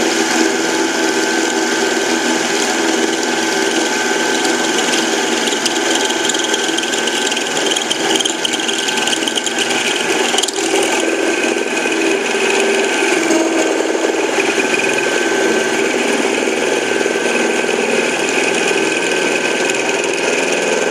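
A 7x10 mini lathe running steadily and being used as a milling machine, its spindle-held cutter taking a deep pass of about 15 to 20 thousandths. Its motor and gears give a steady whine mixed with the noise of the cut, with one brief click about halfway through.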